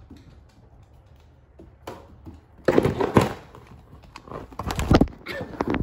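A dog's paws and claws clicking and thudding on a hardwood floor as it walks up close. It starts quiet, then a cluster of loud knocks and clatter comes in the second half.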